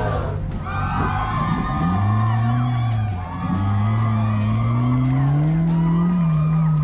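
Background music over a race car's engine accelerating hard. The engine pitch rises, drops sharply at a gear change about three seconds in, then climbs again.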